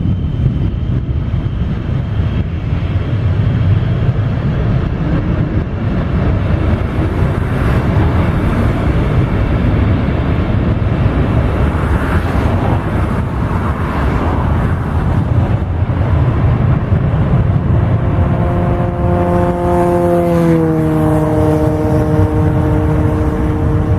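Boeing 727-200's three Pratt & Whitney JT8D turbofans at takeoff power: a loud, steady jet rumble. About 18 seconds in, a cluster of whining engine tones rises out of it, and around 20 seconds the tones drop together in pitch as the jet passes.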